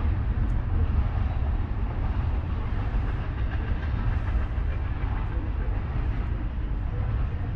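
BNSF freight train passing out of sight, a steady low rumble that eases off slightly.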